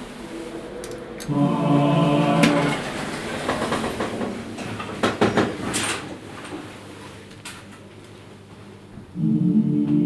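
Voices of the lift's built-in sound installation holding a choral chord. It sounds briefly about a second in, and again, louder, from about nine seconds in as the lift runs. In between come clicks and rattles from the lift.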